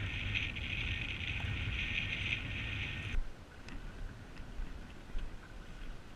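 Steady hiss of water with wind rumbling on the microphone, cutting off abruptly about three seconds in; after that, fainter water sounds with a few small knocks.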